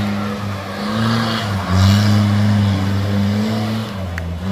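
Off-road 4x4's engine revving under throttle, its pitch dipping and rising several times as the driver works the accelerator.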